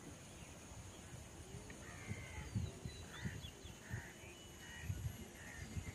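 Faint bird calls: short chirps repeating from about two seconds in, over a few low thumps.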